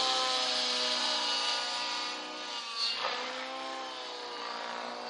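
Align T-Rex 700 radio-controlled helicopter flying aerobatics, its motor and rotor making a steady whine. The pitch sags, dips sharply with a brief louder moment just before three seconds in, then climbs again as it manoeuvres.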